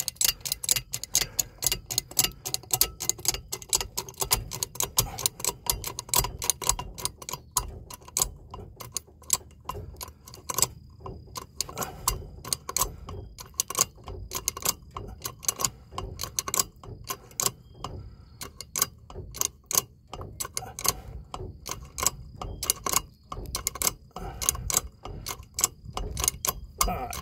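Hydraulic bottle jack being pumped with a screwdriver as its handle, raising the transmission: a steady run of sharp clicks, a few a second, one for each stroke of the pump.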